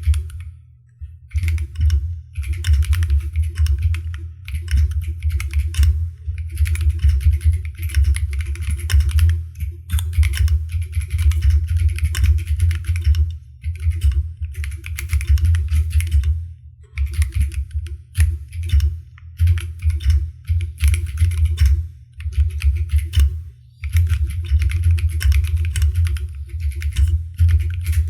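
Typing on an Akko ACR Pro 68 mechanical keyboard: fast runs of key clicks with a solid low thud under each stroke, broken by short pauses.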